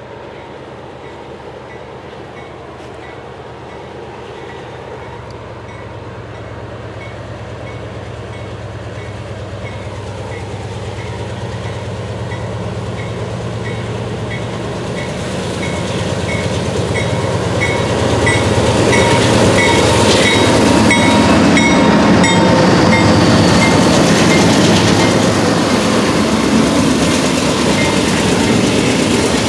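Diesel locomotives of a freight train approaching, their engine sound growing steadily louder until they pass close by about two-thirds of the way in, followed by the loud rumble and clatter of the train. Through most of it a grade-crossing bell rings steadily, about twice a second.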